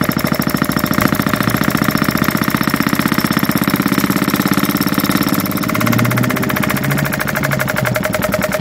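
A 16cc single-cylinder model diesel stationary engine, with mechanical injection and compression ignition, running on pump diesel with a rapid, even exhaust beat. It has only just been started and is still warming up.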